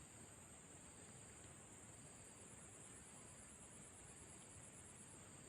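Faint, steady high insect chirring with a rapid, even pulsing chirp above it, over low background hiss.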